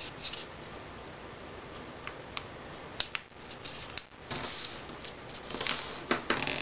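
A sheet of paper being folded and creased by hand on a wooden tabletop: scattered soft crinkles and clicks, with a short run of rustling near the end.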